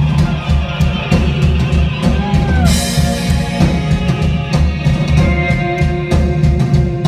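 Rock band playing live: electric guitar lines with pitch bends over a steady drum-kit beat, with a cymbal crash a little under three seconds in.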